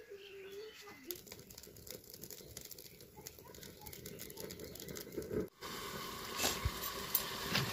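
Firewood crackling as it burns in a clay chulha under an iron wok, a quick run of small sharp pops. After a short break about halfway the fire sounds louder and steadier, with a few stronger pops.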